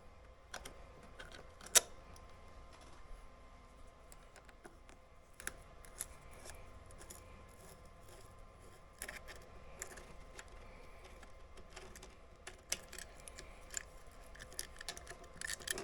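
Scattered light clicks and taps of tools and metal parts being handled while a motorcycle's fuel pump is worked loose from its tank, with one sharp click about two seconds in.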